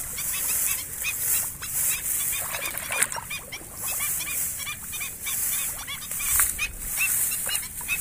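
Black-winged stilt calling: a fast run of short, high, repeated calls, several a second, over the rustle and snap of rice stalks being parted by hand.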